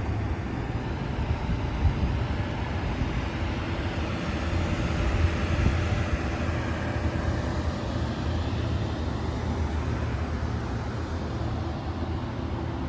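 Steady low rumble with a hiss over it: outdoor background noise with no distinct event, the parked electric truck itself silent.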